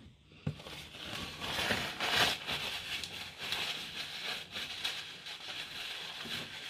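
A paper napkin rubbed between the hands while wiping them, making a continuous rustle that is loudest about two seconds in.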